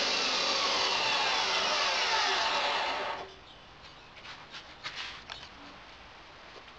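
A power tool working on scrap steel runs loudly, then cuts off abruptly about three seconds in, followed by a few light knocks.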